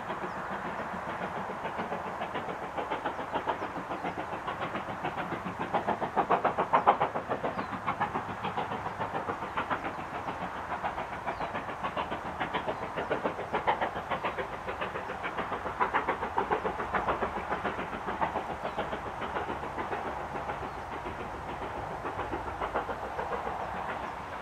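Steam locomotive 70013 Oliver Cromwell, a two-cylinder BR Standard 'Britannia' Pacific, working hard up the steep Beattock incline with a loaded train. Its exhaust beats come in a rapid, even rhythm that swells louder a few times, over the constant roar of motorway traffic.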